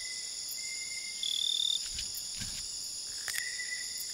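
Night-time tropical forest insect chorus: several steady high-pitched cricket-like trills layered together, with a louder, higher chirp for about half a second around a second in. A few faint clicks and a soft low thud come about two and a half seconds in.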